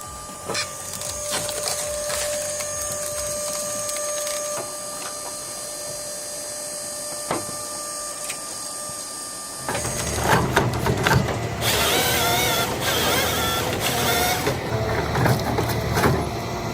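Heavy wood-processing machinery running: a steady mechanical whine with scattered clicks and knocks. About ten seconds in, this gives way abruptly to louder, deeper machine noise with a wavering whine.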